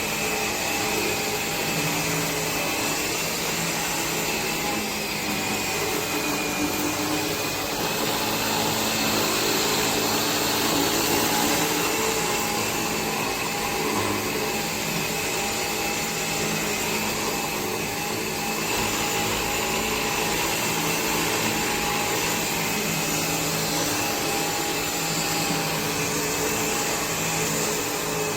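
Bissell 1984 Air Ram cordless vacuum running steadily: a constant whine over a rushing noise.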